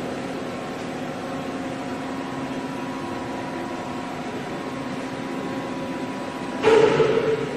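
Doosan Puma 700XLM CNC lathe running with a steady mechanical hum carrying a couple of faint steady tones. Near the end comes a short, louder burst of machine noise lasting under a second.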